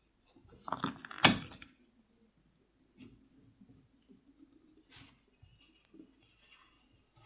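Handling of a phone being opened: a loud clatter of clicks and knocks about a second in, then faint clicks and scrapes as a plastic pry pick works along the seam between the back plate and the frame.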